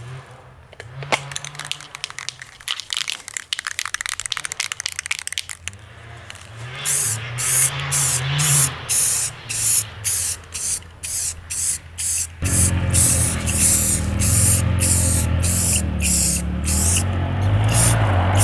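Aerosol can of Rust-Oleum gloss black enamel spraying in short repeated hissing bursts, about one or two a second. The first few seconds hold dense crackly clicking, and a steady low hum comes in under the spraying about halfway through.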